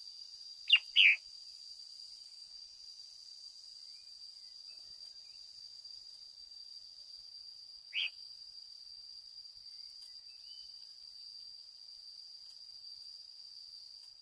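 Red-whiskered bulbul giving short, sharp calls that sweep down in pitch: two in quick succession just under a second in, and one more about eight seconds in. A steady high-pitched cricket drone runs underneath.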